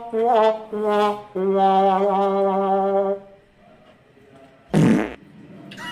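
A person's voice humming without words: a few short hummed notes, then one long steady "mmm" lasting nearly two seconds. A short, breathy, noisy burst follows about five seconds in.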